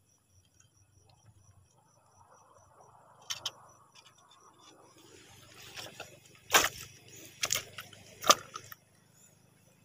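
Crickets chirping faintly, about four chirps a second, then a handful of sharp knocks or scuffs, the loudest about two-thirds of the way through.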